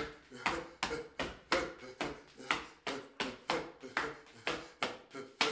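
Sharp percussive strikes in a steady rhythm of about two a second, beating time for a Paraguayan galopa dance, with a pitched voice-like sound between the strikes.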